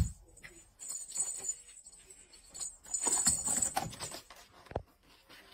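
A small jingle bell jangling on and off, with light clicks and knocks against cardboard, as a cat paws into the holes of a cardboard toy box.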